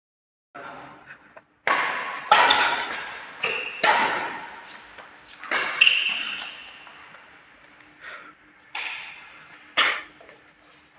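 Badminton rackets striking a shuttlecock in a rally: about eight sharp hits at irregular intervals, each ringing out in a large hall's echo.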